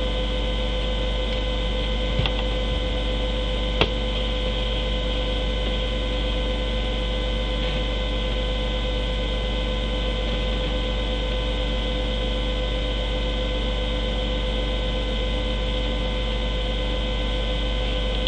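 Steady electrical hum and hiss with several fixed high whining tones, unchanging throughout, broken only by two faint clicks a few seconds in.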